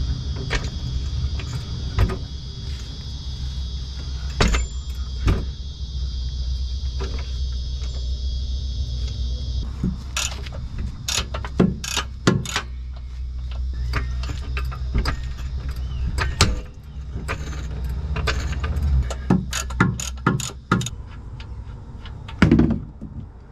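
Ratchet and socket working a Subaru WRX's rear differential drain plug loose, then the plug being turned out by hand: scattered sharp metal clicks and clinks throughout, over a steady low rumble.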